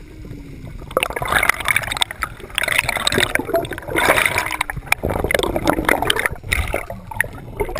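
Air bubbles gurgling underwater close to the camera, in four or five surges from about a second in.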